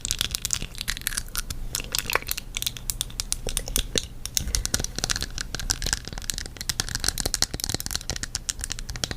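Dense, irregular crinkling and crackling, like something being crumpled or handled, over a low steady hum.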